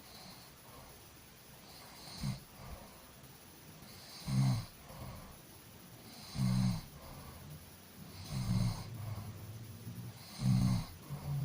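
A person snoring in deep sleep, one loud snore about every two seconds, five in all, the first weaker, with softer breaths between them.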